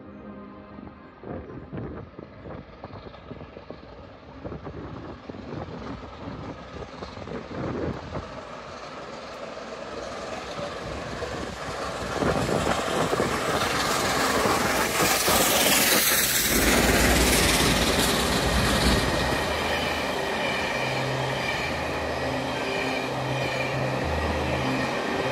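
A4 Pacific steam locomotive approaching and passing at speed, hauling a train of coaches. The sound builds to a loud rush as the engine goes by, then settles into the steady rolling and clickety-clack of the coaches. A low diesel engine drone joins near the end from the Class 47 on the rear.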